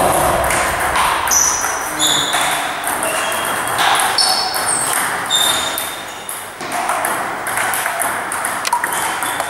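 Table tennis balls clicking off tables and bats in several rallies at once, with many short high pings overlapping throughout.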